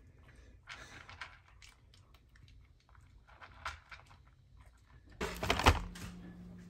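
A cat crunching dry food from its bowl, a few faint crunches at a time. Near the end a louder burst of handling noise, followed by a steady low hum.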